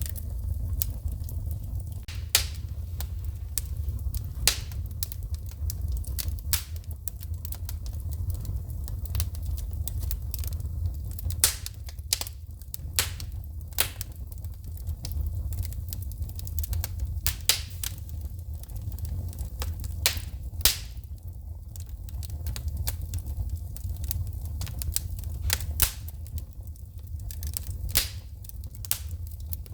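Wood fire in a fireplace crackling, with frequent irregular sharp pops and snaps of shooting sparks over a steady low rumble of the flames.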